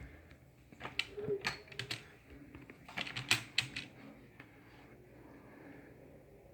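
A scatter of light, irregular clicks and taps, bunched in the first four seconds or so, then faint room tone.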